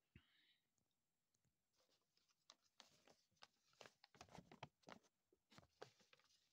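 Near silence: quiet room tone with faint, scattered small clicks and soft rustles, more of them from about two seconds in.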